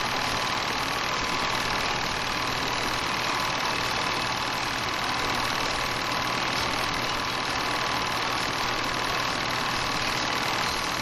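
8mm film projector running: a steady mechanical whir and rattle with a faint hum, unchanging throughout.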